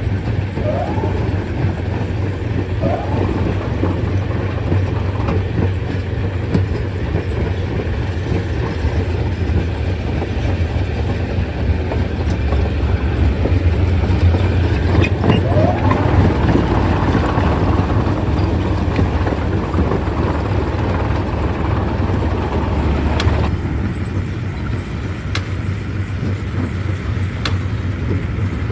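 Stone-crushing machinery running with a steady, loud, deep rumble. A few short rising squeaks come through in the first half, and there are several sharp clicks near the end.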